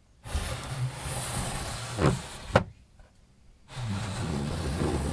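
Wooden sliding screen behind a Japanese tea-room lattice window (renji-mado) sliding open along its wooden groove with a rumbling scrape, ending in two knocks as it reaches its stop. About a second later it starts sliding back with the same scrape.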